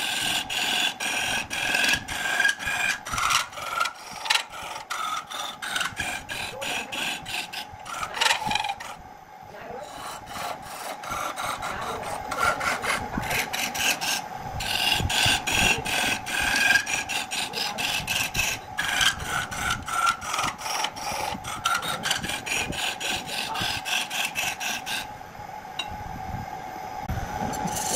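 Wood lathe spinning a workpiece while a hand-held turning tool cuts into it: a steady rasping scrape with rapid ticking over the lathe's steady hum. The cutting pauses briefly about a third of the way in, and near the end it stops, leaving the lathe running on its own.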